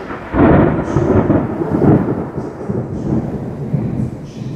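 A loud thunderclap breaks about half a second in and rumbles on for about three seconds, easing off near the end, over steady heavy rain.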